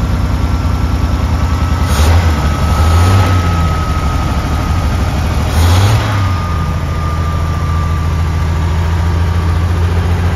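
Square-body truck's inline-six petrol engine idling just after starting, blipped up briefly twice, about two and six seconds in. A thin steady whine rides over the idle and fades near the end.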